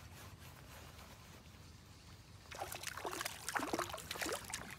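A small hooked bass splashing at the water's surface as it is reeled in to the boat, with a run of splashes in the second half.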